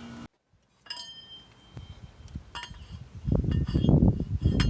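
A few separate, light metallic clinks of tools and steel parts being handled at the engine's intake manifold. From about three seconds in comes louder, irregular low clattering.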